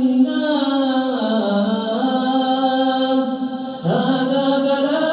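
A single male voice chanting Quranic recitation (tajweed) in long, drawn-out melodic notes that slide down in pitch, with a short breath break a little before four seconds in.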